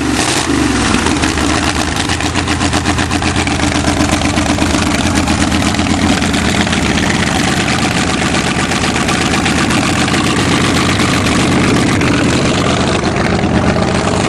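Carburetted petrol engine, just cold-started with the choke and pumped throttle, running loud and steady after a brief rise in revs in the first second.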